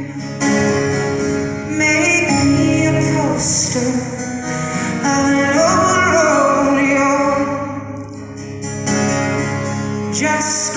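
Live acoustic performance: a woman sings a slow, held melody, accompanied by two acoustic guitars, heard from within the audience in a large hall.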